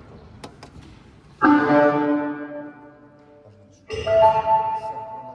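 Music playback: two loud chords, the first about a second and a half in and the second about four seconds in, each struck suddenly and fading away over a second or two. A few faint clicks come before the first chord.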